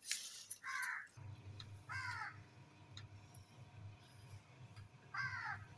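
A crow cawing three times: short harsh calls about a second in, about two seconds in, and near the end. A faint low hum sits underneath from about a second in.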